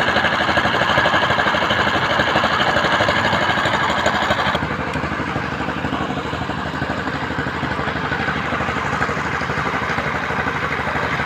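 Construction machinery engine running steadily with a fast, even chug. About four and a half seconds in, its higher hiss drops away and it runs a little quieter.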